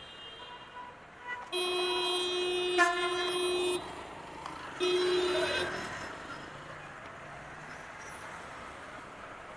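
A vehicle horn honks in one long steady blast of about two seconds, then a shorter blast a second later, over steady traffic noise.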